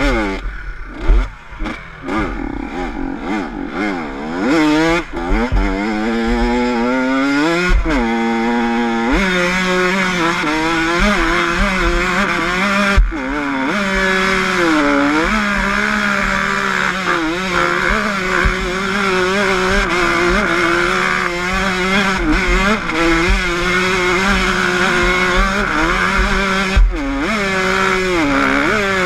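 Honda CR85 two-stroke motocross engine revved at full throttle. It blips up and down for the first few seconds, then is held high with the pitch wavering at the rev limiter, dropping briefly a couple of times.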